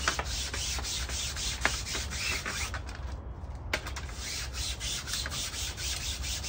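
Hand brush scrubbed back and forth over a window screen's mesh: a quick run of repeated brushing strokes, with a short break about three seconds in.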